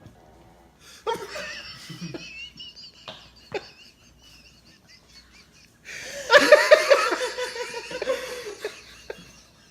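Laughter: a stretch of stifled giggling about a second in, then louder laughing from about six seconds in, which is the loudest part. Two short knocks come around three and a half seconds.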